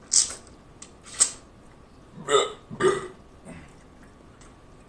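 Two sharp slurps as a man sucks the seasoning off a boiled shrimp, then a man's loud burp in two pushes about half a second apart.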